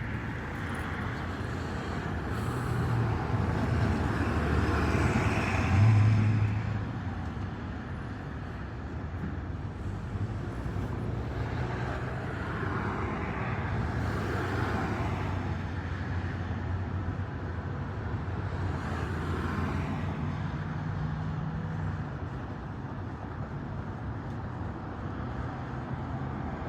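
Car driving in traffic: a steady rumble of engine and road noise, with a louder swell that peaks about six seconds in.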